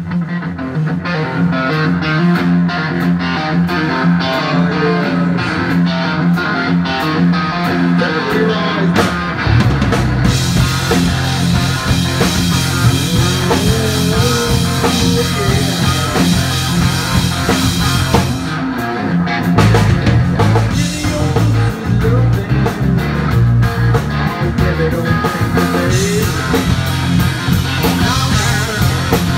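Blues-rock band playing live: electric guitar, drums and bass guitar. A sparser opening over a steady beat gives way to the full band, with heavy bass and cymbals, about ten seconds in.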